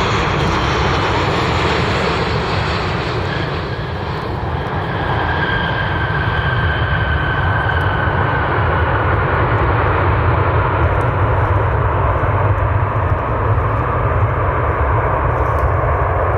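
Jet airliner's engines heard close by: a loud, continuous rush with a high whine that glides slowly down in pitch.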